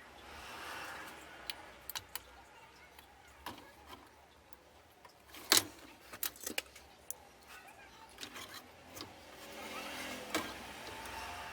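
Scattered small clicks and taps of tools and parts being handled at a workbench while a replacement MOSFET is fitted to a TV's circuit board, with one sharper click about halfway through. A soft hiss swells at the start and again near the end.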